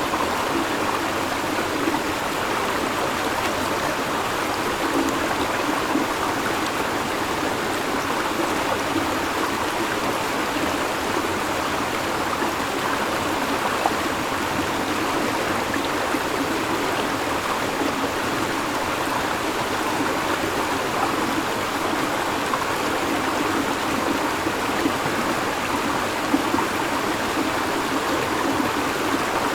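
River water flowing and babbling over stones in a steady, even rush.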